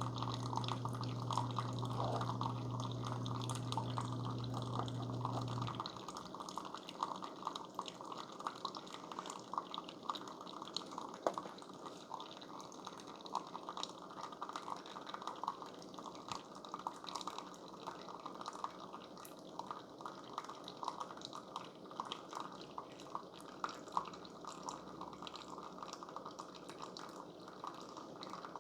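Keurig K-Supreme Plus Smart brewing on its Intense strength setting: its water pump hums steadily and cuts off about six seconds in. After that, coffee drips and trickles into the cup.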